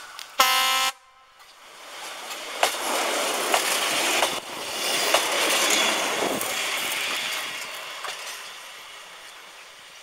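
Czech class 810 diesel railbus giving a short horn blast about half a second in, then passing close by with engine noise and wheels clicking over rail joints, fading away as it runs off down the track.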